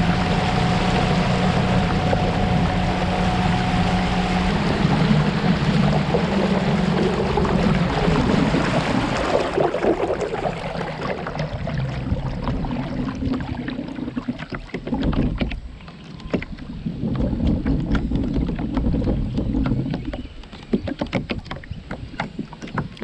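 Electric kayak under power from a brushless motor: a steady motor hum over water rushing past the hull and wind on the microphone. About ten seconds in, the rush of water dies down as the kayak slows, and the motor hum then comes and goes.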